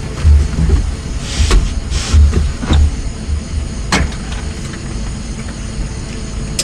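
Gusting wind rumble on the microphone, with clicks and knocks from a man climbing into a jet cockpit and handling its fittings; one sharp click about four seconds in.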